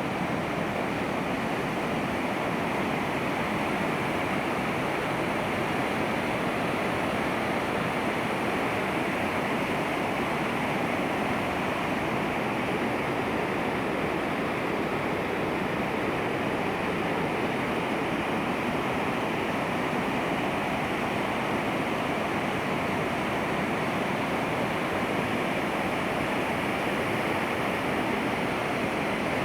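Waterfall in flood: a heavy, steady rush of falling water that does not change.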